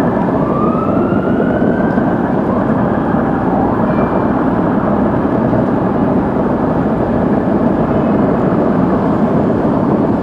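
Continuous dense din of a fireworks display, with one rising whistle in the first two seconds.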